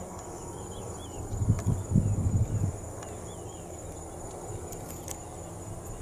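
Steady chorus of crickets and other insects, with a continuous high buzz and a scattering of short chirps. A brief, irregular low rumble about a second and a half in lasts just over a second and is the loudest part.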